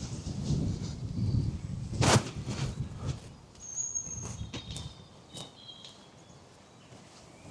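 Footsteps on an outdoor path, with a sharp crunch about two seconds in and softer scattered steps after it, over a low rumble that fades after the first three seconds. Short high bird calls come in around the middle.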